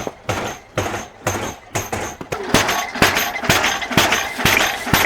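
Repeated sharp knocks, about two a second, getting busier and mixed with a rustling noise past the middle.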